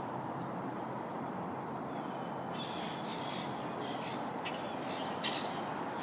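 Backyard birds calling in short, high notes from about two and a half seconds in, over a steady low background rumble, with one sharp click near the end.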